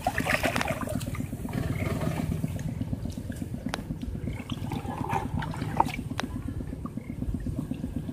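Water sloshing and swishing as a man wades through a shallow pond and drags a hand net through the water, over a steady low rumble, with a few faint clicks.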